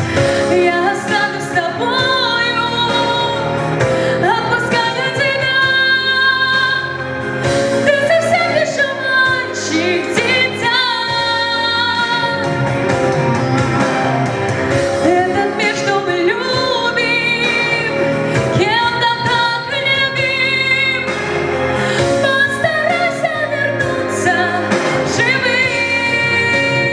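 Slow song: a woman's voice singing long notes with vibrato over an instrumental backing.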